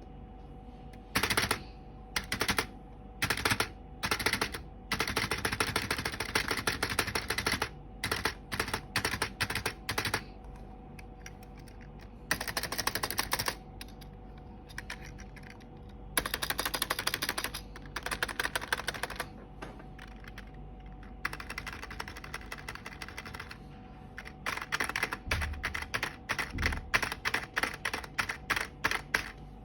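Computer keyboard being typed on in bursts: fast runs of clattering keystrokes broken by short pauses, over a steady faint hum. The keyboard is one its owner calls bad-sounding.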